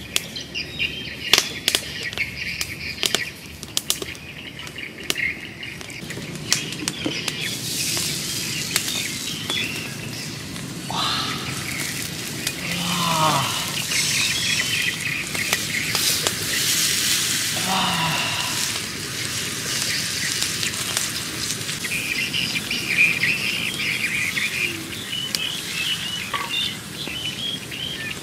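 Seasoned beef steaks sizzling on an oiled granite slab heated by a wood fire, a steady hiss. Sharp crackling clicks sound during the first several seconds, and birds chirp throughout.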